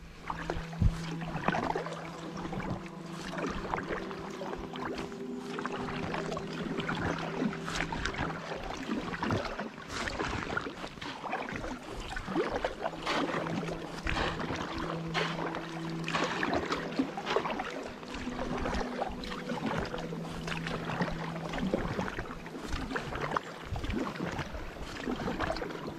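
Packraft paddling: a double-bladed paddle dipping into calm river water, with irregular splashes and drips from the blades. Beneath it a low hum of held steady notes comes and goes in stretches of a few seconds.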